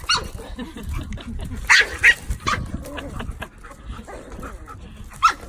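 Dogs barking in short, sharp yaps during a standoff over a bone, the two loudest close together a little under two seconds in and another near the end.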